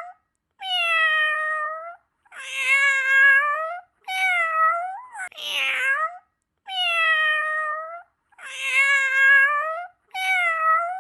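Domestic cat meowing over and over: about seven drawn-out meows, each a second or so long, separated by short silent gaps.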